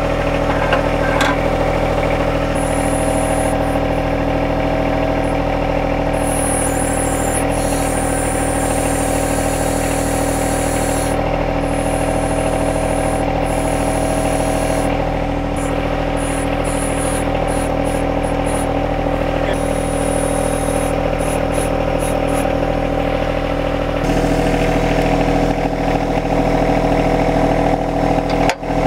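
A John Deere 1025R compact tractor's three-cylinder diesel engine running steadily at a fixed speed. A thin high whine cuts in and out over it, and the engine note shifts slightly near the end.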